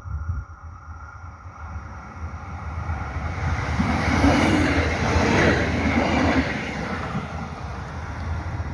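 ATR 110 (Stadler GTW) diesel multiple unit passing over a level crossing: its engine and wheels on the rails grow louder, are loudest about four to six seconds in, then fade as the train runs away.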